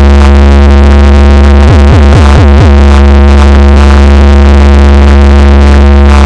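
Loud electronic music: a sustained heavy bass note under a held synthesizer chord, with four quick falling pitch sweeps about two seconds in.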